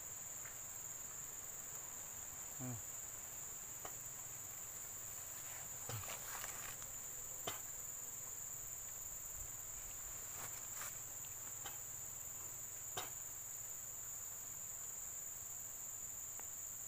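Insects droning steadily at one high pitch, with a few soft clicks and knocks scattered through.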